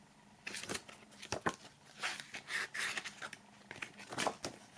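Pages of a glossy CD booklet being turned and handled: an irregular run of short paper rustles with a few light flicks.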